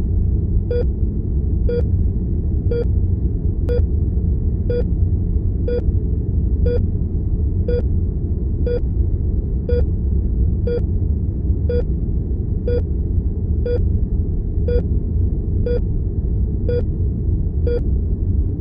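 Heart monitor beeping, a short pitched beep about once a second, each beep marking one heartbeat at roughly sixty a minute. Under it runs a steady low rumble of room tone, louder than the beeps.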